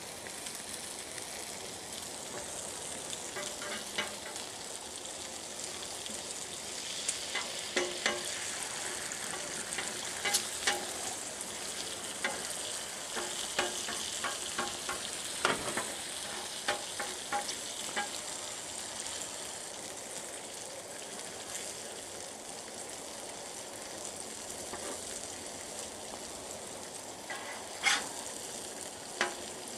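Beaten eggs and bacon sizzling on the hot steel top of a Blackstone griddle, a steady hiss. Over it come scattered sharp clicks and scrapes of a metal spatula on the griddle as the eggs are scrambled.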